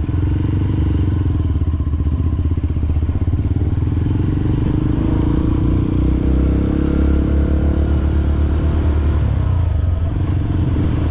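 Trail motorcycle engine running steadily while riding across volcanic sand. The engine note eases off briefly about nine seconds in, then picks up again.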